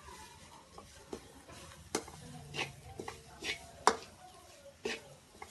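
A metal spoon scraping and knocking against a metal kadhai as spice masala frying in oil is stirred, about seven strokes with the loudest just before four seconds in, over a sizzle.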